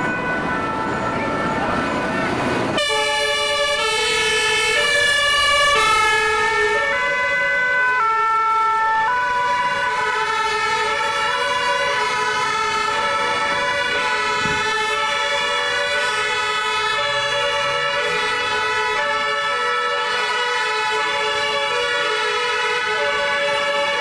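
Two-tone emergency sirens of fire engines and an ambulance, switching between a high and a low note about once a second, several overlapping. For the first three seconds or so a loud rushing noise comes before the sirens start.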